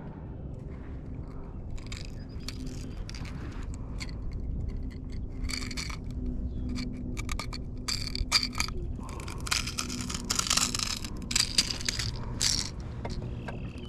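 Irregular scraping, rattling and clicking of gear being handled close to the microphone, growing busier and louder through the second half, over a low steady rumble.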